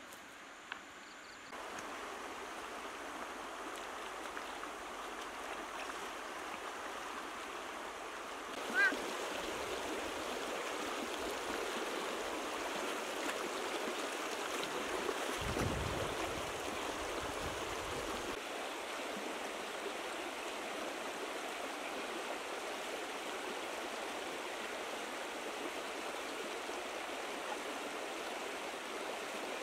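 Shallow river running over stones: a steady rush of water that gets louder about nine seconds in, with a brief low rumble a little past the middle.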